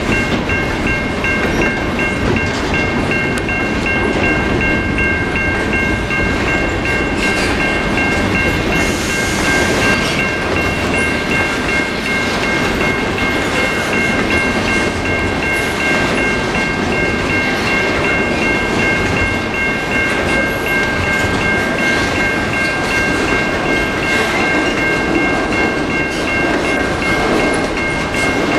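CN double-stack intermodal container train rolling steadily past, its wheels rumbling and clattering over the rail joints. Over it, the level-crossing warning bell rings continuously.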